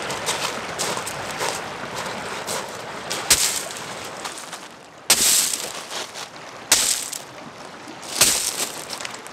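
Footsteps crunching on beach shingle, then heavy rocks dropped one after another onto the pebbles and against other rocks: four hard thuds in the second half, each landing with a brief rattle of gravel. Lapping waves sit underneath.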